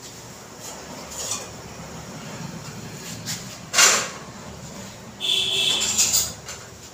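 Kitchen utensils being handled: faint clinks, a sharp knock about four seconds in, then a ringing metallic clatter about a second later.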